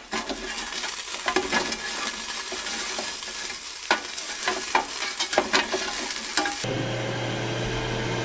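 Tongs clicking and scraping against hot French fries in a Ninja Foodi Grill's ceramic-coated crisper basket as the fries are tossed halfway through air crisping, over a steady hiss. About six and a half seconds in this gives way to the steady whir of the grill's fan running.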